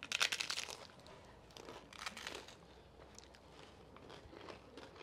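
Crunching of crisp fried tacos being bitten into and chewed, loudest in the first second, with another run of crunching about two seconds in and fainter chewing after.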